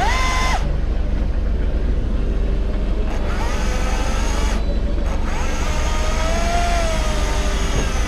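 Fishing boat's engine running steadily, a loud low rumble, with a whine that rises and falls over it.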